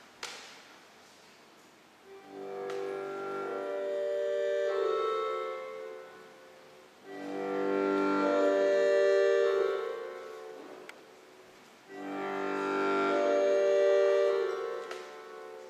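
Slow instrumental music in three swelling phrases of sustained chords, each a few seconds long, with quieter gaps between them.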